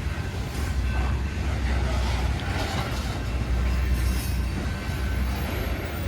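Loaded coal cars of a long freight train rolling slowly past: a steady low rumble with wheel and rail noise.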